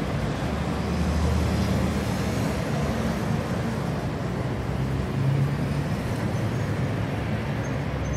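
City street traffic: a steady, even wash of road noise with a low rumble.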